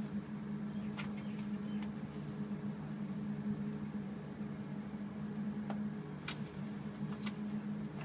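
Steady low machine hum, with a few light clicks and taps scattered through it, the sharpest about six seconds in.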